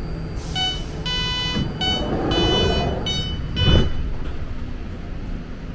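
A string of about six electronic beeps of uneven length over the steady low rumble of a BART train, with a loud thump near the end of the beeps.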